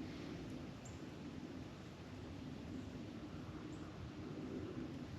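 Quiet woodland ambience: a steady faint hiss, with two short, faint high chirps about a second in and near four seconds.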